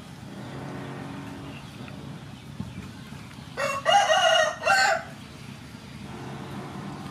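A rooster crows once, about three and a half seconds in: a single loud call of about a second and a half, with a brief break near its end.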